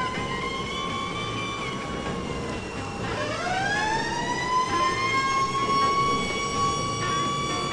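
Siren wailing: its pitch sags slowly, drops away about three seconds in, then winds back up and holds steady, over a low rumble.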